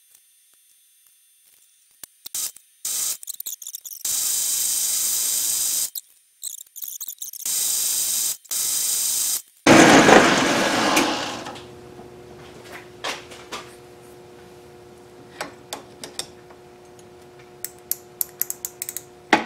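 A small metal lathe in a home workshop. After two stretches of loud hissing, the lathe starts with a loud surge about ten seconds in. It then runs with a steady, multi-tone hum while the steel workpiece spins between centres. Sharp clicks of tools being handled come near the end.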